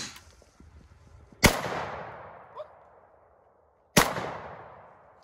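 Two shots from an AK-pattern rifle firing 7.62×39 full-metal-jacket rounds, about two and a half seconds apart, each followed by a long fading echo.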